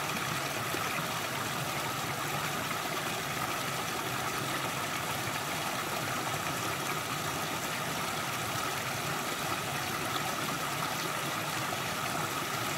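Small rocky creek running steadily, water trickling and splashing down a low cascade between stones.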